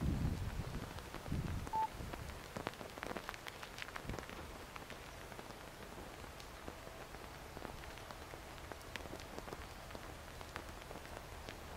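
Open-air ambience: wind buffeting the microphone in gusts for the first couple of seconds, then a low steady background with scattered faint clicks and ticks and one brief short chirp.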